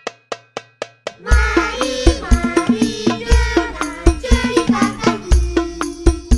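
Hadroh-style DJ remix music with heavy bass: sparse percussion hits at first, then about a second in a deep booming bass and a melody come in over fast percussion.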